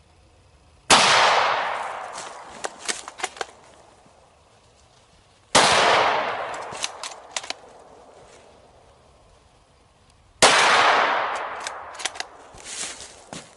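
Three deer rifle shots fired at a doe, about five seconds apart. Each shot's echo rolls away over a few seconds, and a few sharp clicks follow each one.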